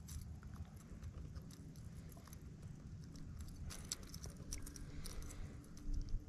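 Faint clicks and rustles of fingers working a lure's hook out of a small bass's mouth, with a run of sharp ticks about four to five seconds in, over a low rumble.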